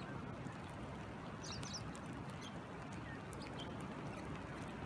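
Steady rain falling on a pool and sandy ground beside a flowing river, an even hiss with a light patter of drops. A few short high chirps come through about a second and a half in and again later.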